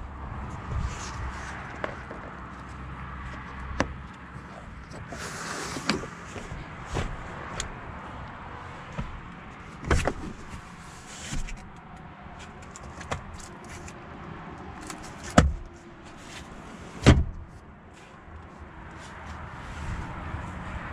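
Renault Rafale's trunk and rear-seat fittings being worked by hand: a string of clicks and knocks, a short hiss about five seconds in, and three heavier thumps like doors or panels shutting near the middle and later on.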